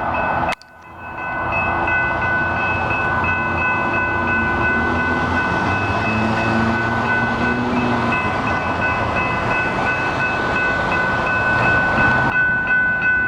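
Metro-North train rolling past a grade crossing, a continuous loud rushing, while the crossing bells ring steadily. The sound breaks off briefly about half a second in, and the train's rush falls away near the end while the bells keep ringing.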